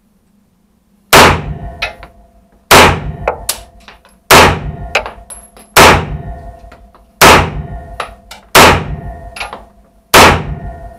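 CZ Scorpion EVO3 firing seven single semi-automatic shots, about one every second and a half, starting about a second in. Each shot echoes in the small booth and is followed by fainter metallic clinks and ringing.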